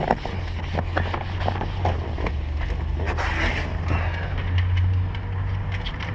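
Scrubby pad scrubbing over a wet car rear window, with irregular short scrapes and rubs, over a steady low hum.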